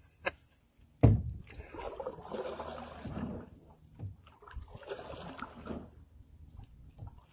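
Canoe paddle strokes: water swishing and dripping off the paddle blade in two spells, after a single sharp knock about a second in.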